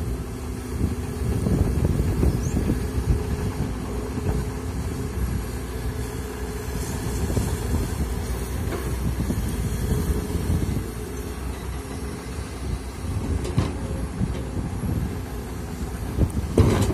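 Komatsu PC200 hydraulic excavator's diesel engine running steadily under load as the machine digs into a soil pile. There is a short clunk near the end.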